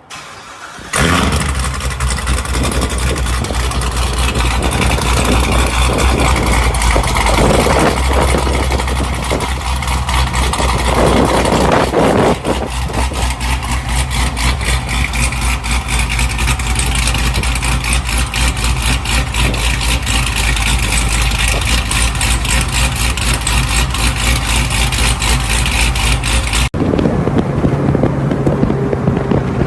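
A sports car engine starts about a second in and runs loudly with a rapid, even exhaust pulse. Near the end it cuts abruptly to a different engine sound.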